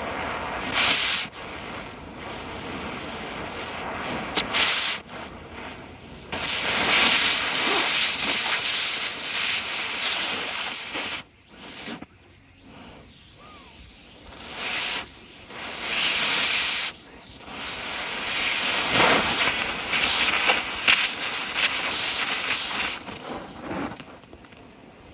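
Oxy-acetylene cutting torch hissing as its jet cuts through a rifle's steel receiver. The hiss swells and falls in long stretches, drops off suddenly about eleven seconds in, then comes back loud with short bursts before a long stretch near the end.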